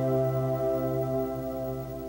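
Soft, sustained ambient background music of held chords, fading down near the end.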